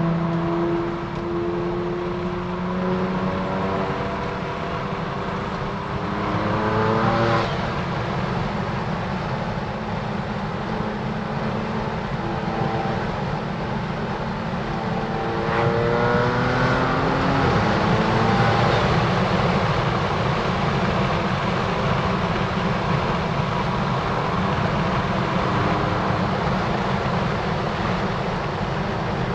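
BMW F80 M3's twin-turbo inline-six, tuned with an M Performance exhaust and secondary cat delete, pulling hard twice. Each time the engine note climbs and then breaks off with a sharp burst, about seven seconds in and again near the middle, before the note falls away, over a steady rush of road noise.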